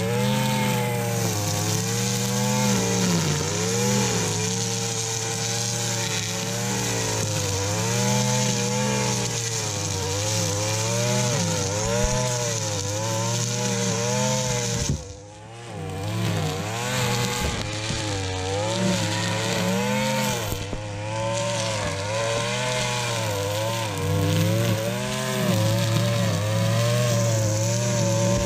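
Gas-powered string trimmer running at high throttle, its engine pitch wavering up and down as the line cuts through thick, tall grass. About halfway through the engine drops off for a moment, then revs back up.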